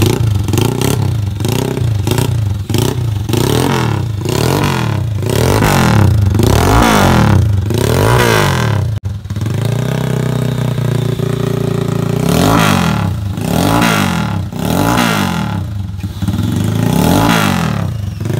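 Honda EX5 Class One engine with a 58 mm bore, running through an aftermarket exhaust and revved in quick, repeated throttle blips that rise and fall in pitch. About halfway through it settles to a steady idle for a few seconds, then is blipped again.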